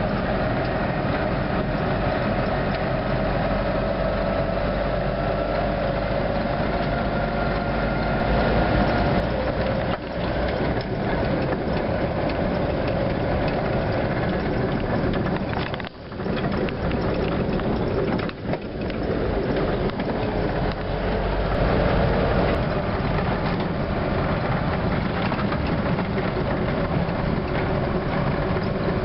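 Ex-military vehicle's engine and drivetrain running under load on a rough dirt track, heard from on board, with a steady whine above the rumble.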